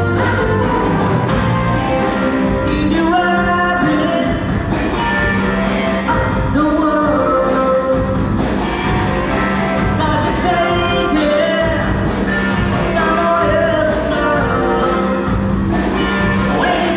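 A live rock band playing: electric guitars, keyboard synthesizer and drum kit, with singing over the top, steady and loud.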